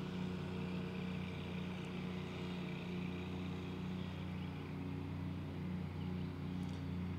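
Steady engine hum of commercial mowers running as they cut a large lawn, one of them a Wright 72-inch autonomous mower.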